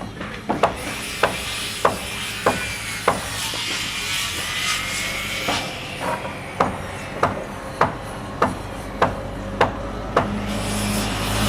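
Construction-site ambience: a hammer striking in a steady rhythm about every 0.6 s, pausing for about two seconds midway, over a low background hum, with a faint high whine during the pause.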